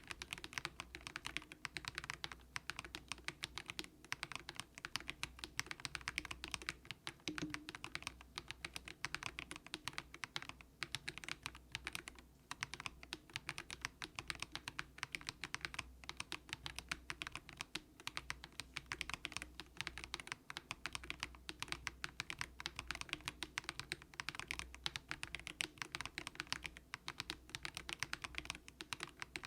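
Monstargear Ninja87 plastic-cased mechanical keyboard with light, low-force Haimu Sea Salt switches being typed on quickly and continuously: a dense, steady stream of keystroke clacks.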